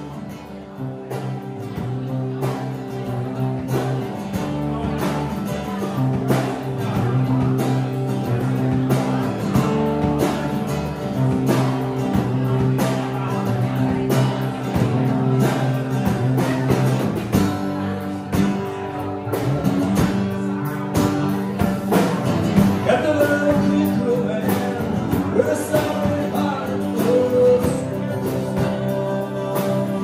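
Live rock band playing: drum kit, strummed acoustic guitars and electric guitar, with a man singing over it in the second half.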